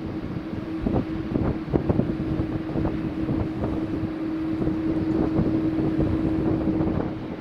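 Jet airliner engines running on a takeoff, heard as a steady drone with one constant tone that fades out near the end, while wind buffets the microphone in irregular gusts.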